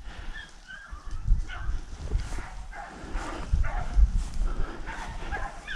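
Rabbit hounds baying in repeated short, wavering calls as they run a rabbit on scent, with a few low thumps.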